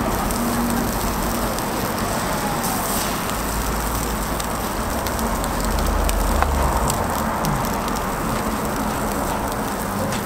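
Egg and cheese sizzling steadily on a flat-top griddle, with a fine crackle throughout and a low hum underneath.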